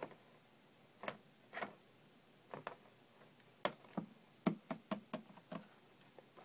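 Light, scattered taps and knocks of plastic toy pony figures being moved about and set down on a laptop lid, about ten taps in all and thickest in the second half.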